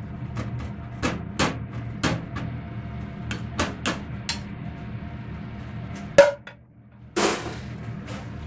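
A ladle knocking and scraping against a frying pan while stir-frying fried rice, roughly one to two knocks a second over a steady low hum. About six seconds in comes one louder knock, a brief hush, then a longer scraping sound of rice being scooped from the pan.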